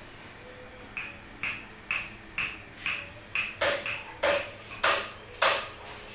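Hammer blows in a steady rhythm, about two a second, each with a brief metallic ring; the blows from about halfway on are heavier and louder.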